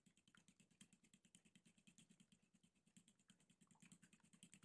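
Faint, quick, even ticking of a utensil beating eggs and milk in a glass bowl.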